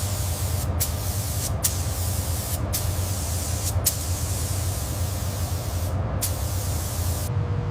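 Steady hiss of compressed air spraying, cut off briefly several times and stopping shortly before the end, over a constant low hum.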